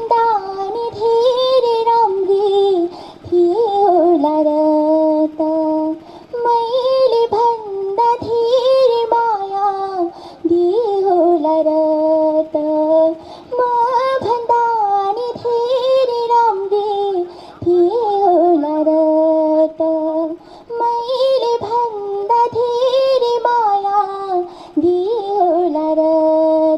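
A young female singer singing a slow Nepali adhunik song into a handheld microphone, in long held, ornamented notes phrase after phrase, with short breaks between phrases.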